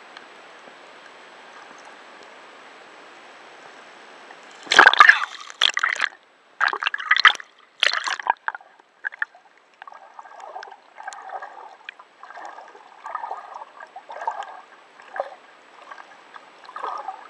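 Water sloshing and gurgling, muffled, picked up by an underwater camera's microphone. A steady hiss at first, then a run of loud splashy bursts about five seconds in, then softer sloshes roughly once a second.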